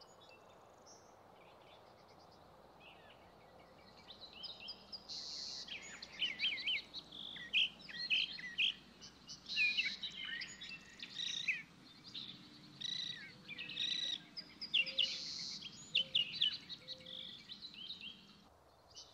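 A chorus of several songbirds singing at daybreak, their chirps and warbled phrases overlapping. It starts faintly and fills in about four seconds in.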